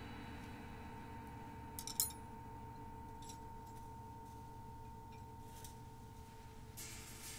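A large Paiste gong's ring dying away, a faint hum of held tones. About two seconds in comes a short, sharp metallic clink, and near the end a soft hiss starts to build.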